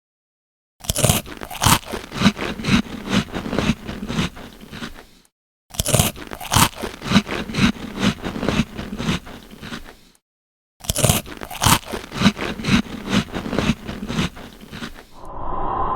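Repeated crunching and scraping strokes, a few a second, in three runs of about four to five seconds with short silences between them.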